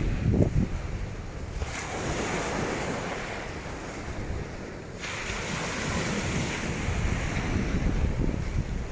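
Strong wind buffeting the microphone over the wash of waves on a beach. The low gusty rumble eases about two seconds in and picks up again in the second half.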